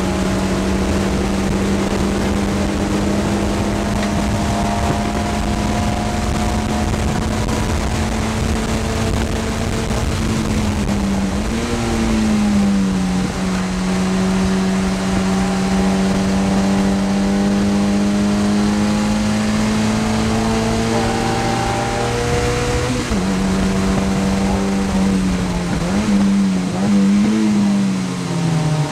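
Mazda MX-5 race car's engine heard from inside the cockpit, held at steady high revs for long stretches at racing speed. About eleven seconds in the pitch swings up briefly and then settles lower, and from about two-thirds of the way through it drops again with a few quick rev blips on downshifts, ending lower.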